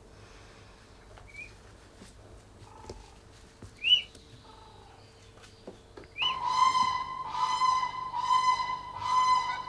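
Siberian crane chick giving a few faint, short rising peeps. About six seconds in, a much louder steady-pitched sound begins, swelling in even pulses about one and a half times a second.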